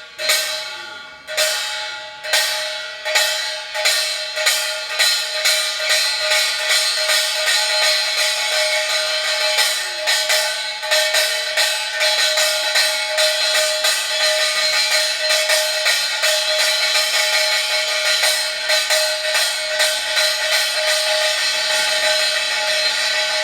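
Korean pungmul percussion led by bright, ringing strikes of small brass gongs (kkwaenggwari). The strikes start slowly and quicken over the first few seconds into a fast, steady rhythm.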